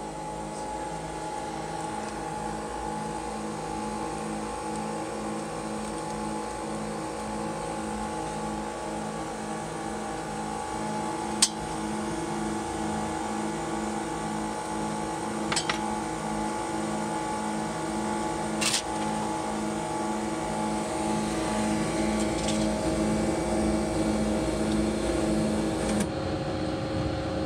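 Screen-refurbishing machine running with a steady hum that pulses about twice a second, stopping shortly before the end, with a few sharp clicks in between.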